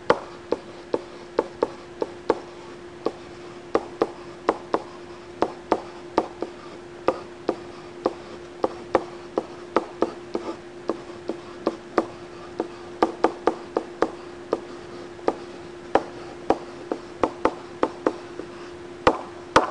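A stylus tapping and clicking on a tablet's writing surface as words are handwritten, in sharp, irregular taps about two a second. A steady hum runs underneath.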